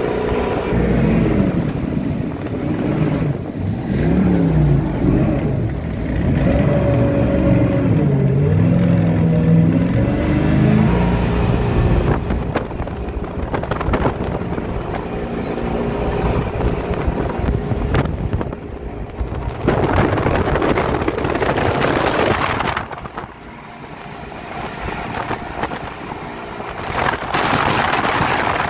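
Small boat's outboard motor running under way, its pitch wavering up and down for the first ten seconds or so and then steadier. Bursts of rushing noise come about twenty seconds in and again near the end.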